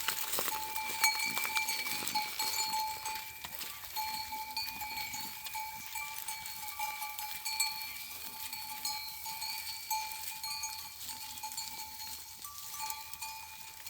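Bells on grazing livestock jingling steadily: a held ringing tone with many quick small clinks over it.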